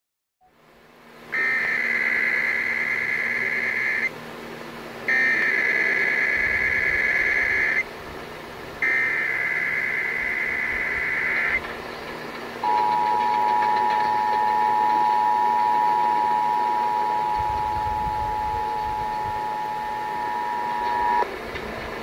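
Emergency Alert System Required Monthly Test heard over an AM radio: three bursts of SAME digital header data, each about two and a half seconds with a short gap between, then the dual-tone EAS attention signal held steady for about eight seconds before cutting off. Radio static runs underneath.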